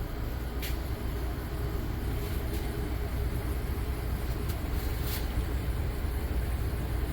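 Two whole-house dehumidifiers running with a steady low mechanical hum and drone, with a few brief faint ticks over it.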